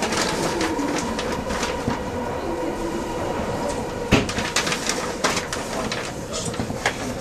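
Odakyu Romancecar limited express running through a subway tunnel, heard from inside the front car: steady running noise with a faint steady whine and irregular clicks of the wheels over rail joints, with a sharp knock about four seconds in.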